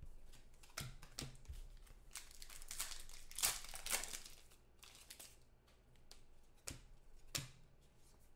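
Foil wrapper of a trading-card pack being torn open and crinkled by hand, crackling loudest about three to four seconds in. A few sharp clicks come before and after it.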